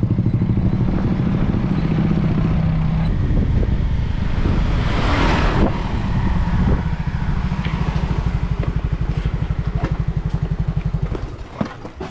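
Small motorbike engine running at a steady pace while riding, its even firing pulse loud close to the microphone, with a brief rush of noise about five seconds in; the engine drops away near the end.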